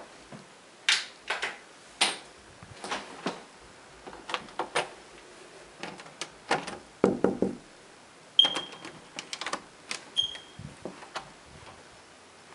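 Interior door being handled: a run of sharp clicks and knocks from the brass knob and latch as the door is opened and passed through, with a heavier thump about seven seconds in and two brief metallic rings in the second half.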